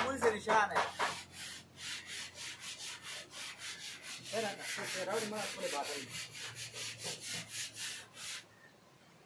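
Rhythmic rubbing or scraping strokes, about three a second, like hand sanding, stopping abruptly about eight and a half seconds in.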